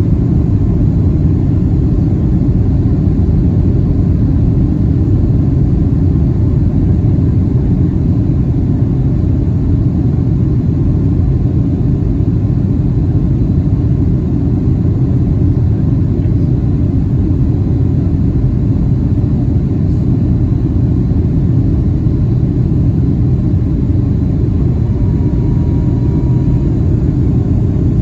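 Steady low rumble of cabin noise inside a Boeing 757-300 airliner in flight: the engines and the airflow past the fuselage.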